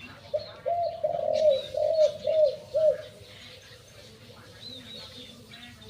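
Male spotted dove cooing in the deep 'three-kuk' (sam kuk) style prized in Thai decoy and competition doves: a run of about seven short, low cooing notes in the first three seconds, then fainter. Faint high chirps from other small birds sound behind it.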